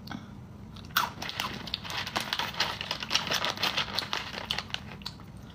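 A person chewing a crunchy snack close to the microphone: a quiet moment, then a quick, continuous run of crunches starting about a second in.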